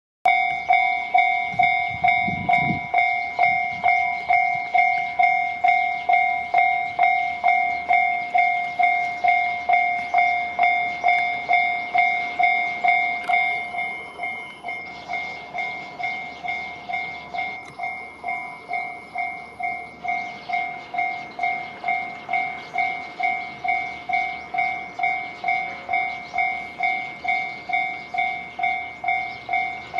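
Japanese railway level-crossing warning bell ringing in a steady, even rhythm of about two strikes a second. About 13 seconds in, it drops to a noticeably lower volume and keeps ringing.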